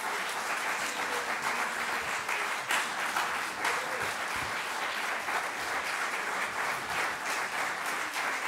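Concert audience applauding steadily, with a faint voice or two calling out over the clapping.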